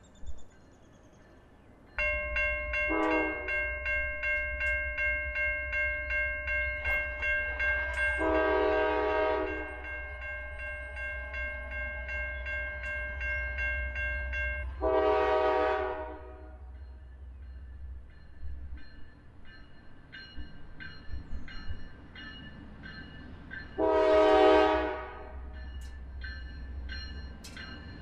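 Norfolk Southern diesel freight locomotive sounding its horn in four blasts, the last the loudest, over a grade-crossing bell that rings until about halfway through. The low rumble of the train runs underneath, and scattered clicking from the wheels follows later.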